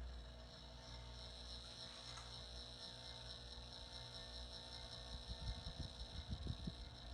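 Faint steady electric hum from a Moss Olympus ceiling fan's cast-iron spinner motor, turning slowly on its variable speed control, which the owner wonders is on the fritz. About five and a half seconds in, irregular low fluttering thumps begin.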